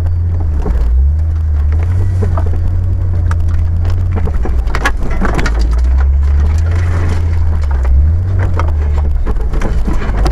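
Jeep Cherokee XJ engine running as a low drone, heard from inside the cab, while branches and leaves scrape and slap against the windshield and body. Short knocks and rattles come at irregular intervals.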